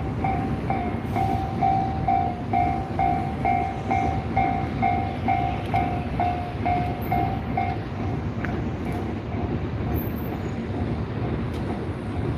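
Japanese railway level crossing alarm ringing its rapid electronic bell tone, about two strikes a second, over the rumble of a passing train. About eight seconds in the alarm becomes much fainter while the train rumble goes on.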